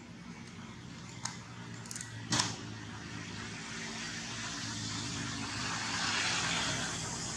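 Steady hum of a motor vehicle's engine, with a hiss that swells to its loudest about six seconds in. A few sharp clicks come between one and two and a half seconds in, the last one the loudest sound.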